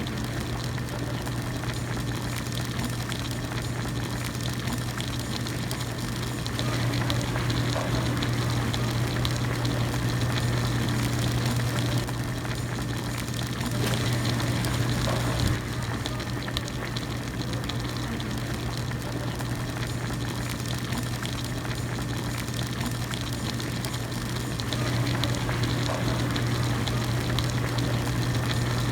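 Hot pot broth at a steady boil in a small individual pot, bubbling over a constant low hum. The bubbling grows louder for a few seconds at a time, then settles back.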